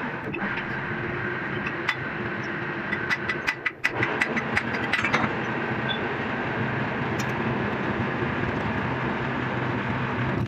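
Metalworking machine running steadily in a workshop during bolt making, with a steady hum and whine. About three to five seconds in comes a quick series of sharp metallic clicks and clinks.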